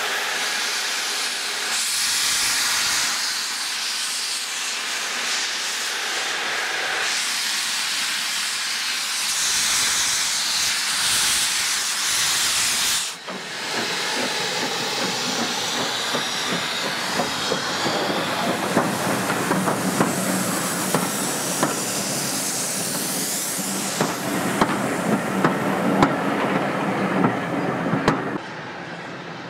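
LNWR 'Coal Tank' 0-6-2T steam locomotive 58926 letting off a loud, steady hiss of steam. About halfway through, the engine starts away and its steam hiss is joined by a growing run of sharp clicks and knocks from the moving engine and coaches, thickest just before the sound cuts off near the end.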